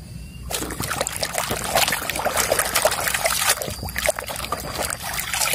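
Muddy water splashing and sloshing in a plastic tub as a hand scrubs a toy car under the surface, starting about half a second in.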